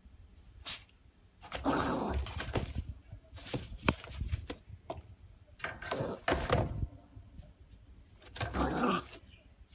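Shiba Inu puppy making a commotion in its wire crate in four bursts, pawing and scrabbling at the bars with sharp rattles among them. It is eager to be let out.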